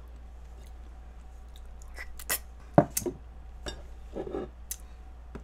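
Scattered small clicks and taps of eating at the table, from mouth sounds and chopsticks touching dishes, the sharpest a little under three seconds in.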